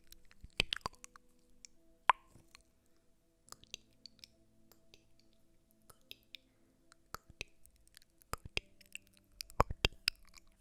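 Close-miked ASMR trigger sounds: irregular soft clicks and taps, with a louder cluster near the end and a couple of short, briefly ringing taps.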